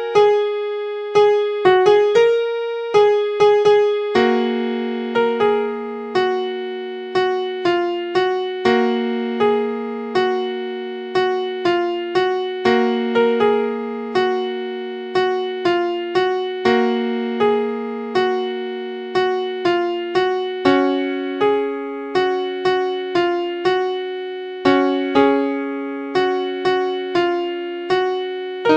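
Background music played on a software electric-piano sound: a slow melody of struck notes, roughly two a second, over held chords that change every few seconds.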